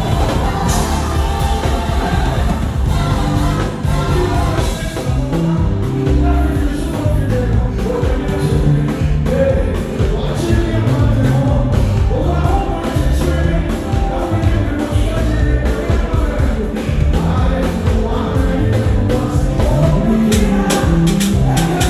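Live band playing: a drum kit with busy drum and cymbal strokes over electric bass and keyboard, with singing on top.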